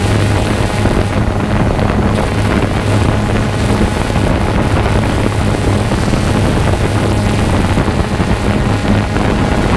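Multirotor drone's motors and propellers buzzing steadily in flight: a constant low hum under a rushing wash of air.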